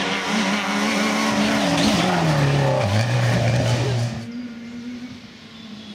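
Citroën Saxo rally car passing close at speed with loud engine and tyre noise. Its engine note falls steeply about two and a half seconds in, and the sound fades away after about four seconds.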